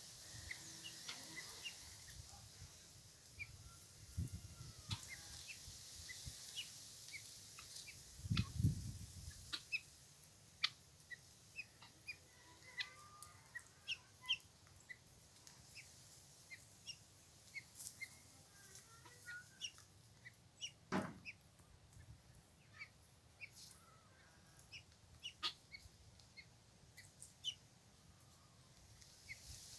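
Free-ranging hens and a rooster clucking softly and sparsely while they forage, with many short high ticks or chirps scattered through and one sharp click about two-thirds of the way in.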